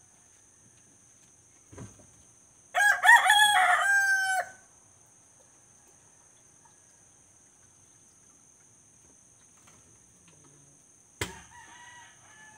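A rooster crows once, loudly, a little under three seconds in, for about two seconds, ending on a held note. Near the end a sharp knock is followed by a fainter call.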